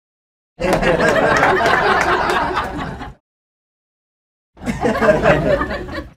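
Crowd laughing, twice: a burst of many people laughing together that fades out after about two and a half seconds, then, after a gap of dead silence, a shorter burst that cuts off just before the end.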